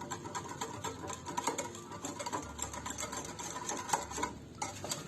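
A utensil stirring a yogurt, tahini and lemon sauce in a bowl: a fast, continuous run of small clicks and scrapes that stops briefly near the end.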